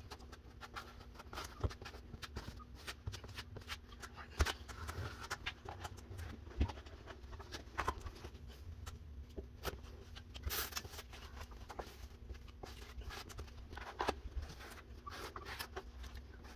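Plastic drywall knife spreading and scraping joint compound onto a ceiling patch: irregular soft scrapes broken by sharp clicks and taps as the knife is slapped on and lifted off. A faint steady hum runs underneath.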